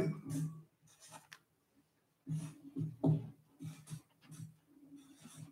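Felt-tip marker writing on a paper flip chart: short scratchy strokes with pauses between them.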